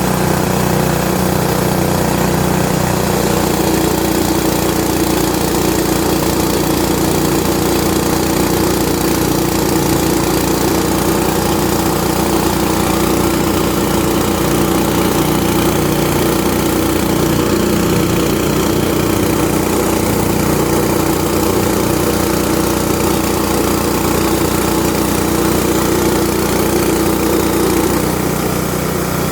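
Yamakita YMKT-200 196 cc single-cylinder four-stroke petrol engine running steadily under load, driving a Mahkota KD-400S rice huller. A steady hum in the sound comes in about three seconds in and drops out near the end.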